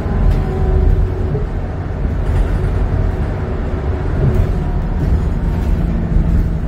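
Interior ride noise of a New Flyer XE40 battery-electric bus under way: a steady low rumble with faint steady tones over it, and no engine sound.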